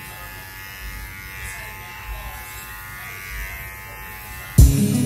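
Cordless electric pet hair clipper running with a steady buzz as it trims a Shih Tzu's coat. Music comes in loudly near the end.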